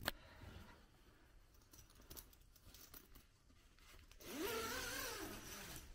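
A tent door zip being pulled open about four seconds in, a rasp that rises and then falls in pitch, after a single click at the start and faint fabric handling.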